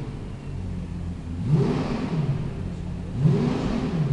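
Lexus LFA's 4.8-litre V10 free-revved twice from idle, each rev climbing and falling back to idle within about a second, the second one near the end.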